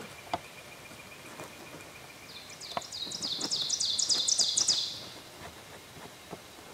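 A songbird singing a quick run of repeated high notes, about five a second, that grows louder for about two and a half seconds and then stops; it starts about two seconds in.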